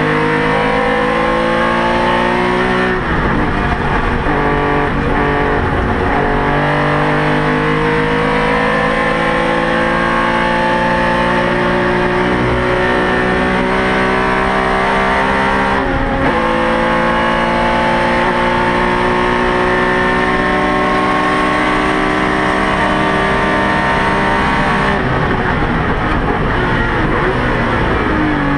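Porsche 911 RSR flat-six race engine under hard acceleration, heard from inside the car. Its pitch climbs steadily through the gears, with upshifts about three seconds and sixteen seconds in, and the driver lifts off near the end.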